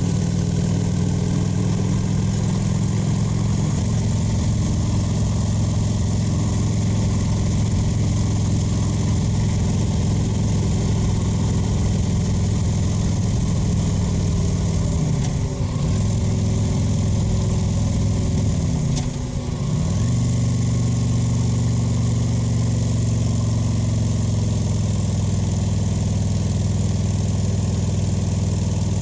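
Kawasaki VN 900's V-twin engine running under way with a steady exhaust note. The note twice drops in pitch and picks back up, about halfway through and again a few seconds later.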